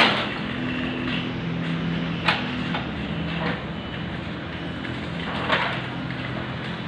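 Metal road-marking cart being pushed over asphalt, with a steady low mechanical hum and three sharp metallic clanks: one at the start, one about two seconds in and one about five and a half seconds in.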